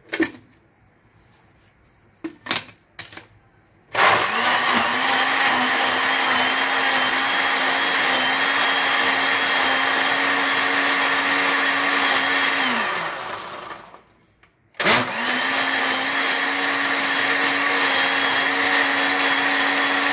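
Electric countertop blender grinding falsa berries with sugar and water. A few clicks come as the lid is pressed on, then the motor starts about four seconds in and runs steadily. It winds down with a falling pitch, stops for about a second, and starts up again.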